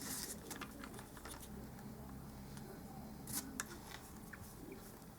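Faint scattered clicks and light handling noises of small tools and electronic parts on a workbench, with a couple of sharper ticks about three and a half seconds in.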